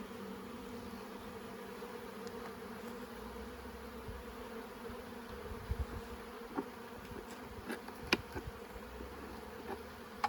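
Honey bees buzzing in a steady hum around an open hive. A few light, sharp knocks fall in the second half, the loudest about eight seconds in.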